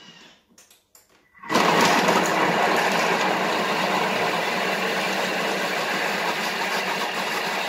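Thermomix TM6 food processor chopping zucchini flesh, shallots and garlic at speed 5: the motor and blade start abruptly about a second and a half in and run at a loud, steady whirr. A few faint clicks come just before.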